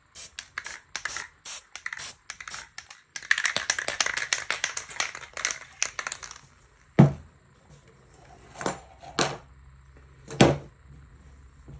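Handling noise from spray-paint work: quick light ticks, then a denser crackling stretch, then four separate sharp knocks.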